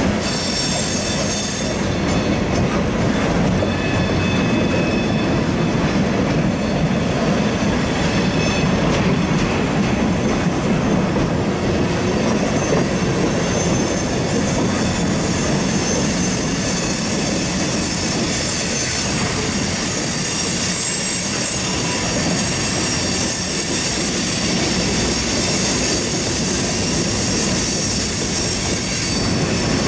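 Train rolling past at close range: a steady rumble of wagons on the rails, overlaid by high-pitched wheel squeal that comes and goes.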